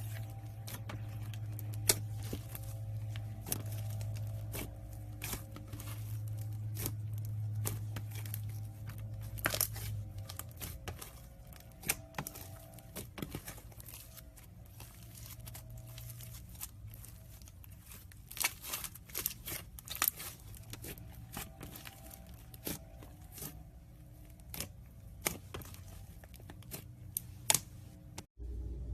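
Slime being handled, stretched and squeezed: irregular sticky crackles and sharp pops over a steady low hum.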